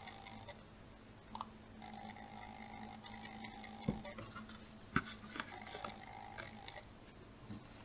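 Faint handling sounds of paper plates being stacked and pressed: a few light clicks and taps, the clearest about four and five seconds in, over a faint steady hum.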